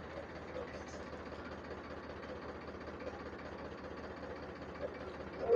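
Powertrac 435 DI tractor's diesel engine idling steadily while the hydraulic lift raises men standing on it as a load test. It holds the load at idle without being revved, a sign that the repaired hydraulics are working.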